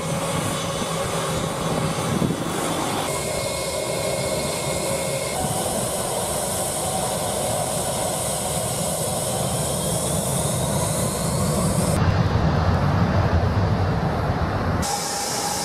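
Airliner jet engines running on the runway, a steady rush with a whine that slowly rises in pitch through the middle as the engines spool up. Near the end, a louder, deeper rumble takes over for a few seconds.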